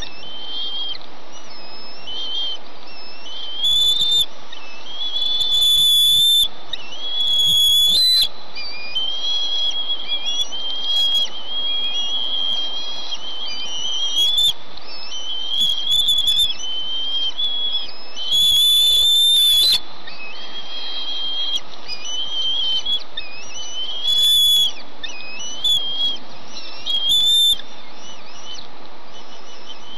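Bald eaglets giving high-pitched, wavering whistled begging calls for food, repeated in strings, with several louder, longer calls, over a steady hiss.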